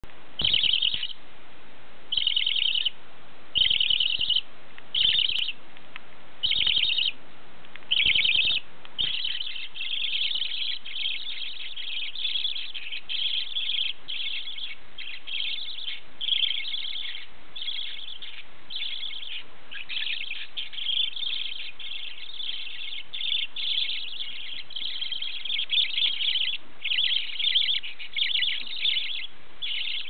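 A chorus of budgerigars chirping. At first the calls come in short separate bursts about every second and a half; from about nine seconds in they run together almost without a break.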